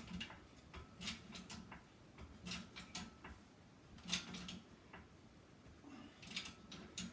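Hand-pumped hydraulic bottle jack in a shop press giving faint, irregular clicks and creaks from the handle strokes, about one a second, as it forces stainless sheet into a forming die.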